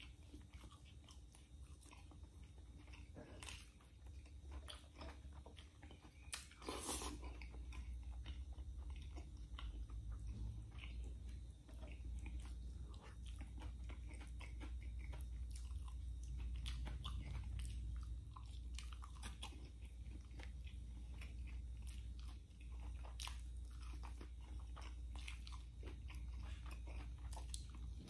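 Close-miked chewing and biting of pork adobo and fried tofu: wet mouth sounds with many small crunches and clicks. A low steady rumble runs underneath and grows louder about a quarter of the way in.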